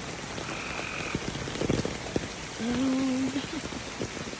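A frog croaking against steady rain with pattering drops. The frog's one low, steady call, just under a second long about two and a half seconds in, is the loudest sound. A fainter, higher call comes about half a second in.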